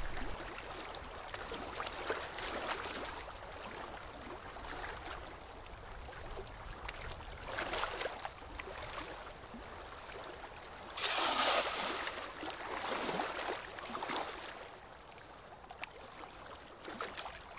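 Water sound effect: a wooden rowboat moving on a river, with soft lapping swells every few seconds and a louder splash about eleven seconds in.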